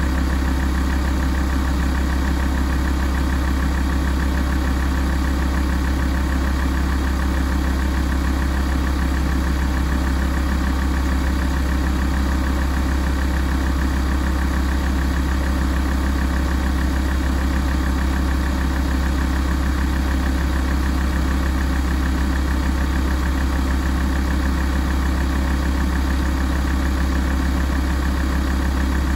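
Alfa Romeo 166 2.4 JTDm five-cylinder common-rail diesel idling steadily while warming up, with an even low hum and no revving.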